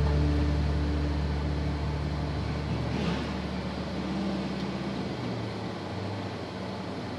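A Jeep moving slowly along a dirt trail, its engine and driving noise a steady hum heard from inside the vehicle, with a brief rush of noise about three seconds in. A guitar music track fades out over the first couple of seconds.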